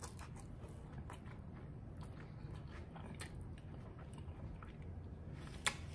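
Chewing a full mouthful of food: faint, irregular chewing clicks close to the microphone, with one sharper click near the end.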